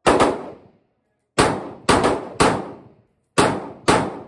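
Omni Maxx AR-15 pistol firing single shots: one, then three about half a second apart, then two more, each with a ringing tail.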